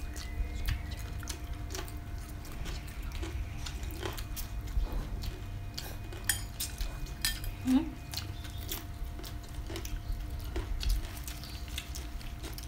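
Eating at a table: chopsticks clicking against bowls, with chewing and slurping of rice noodles and raw vegetables. The short sharp clicks come irregularly, several a second at times, over a faint steady hum.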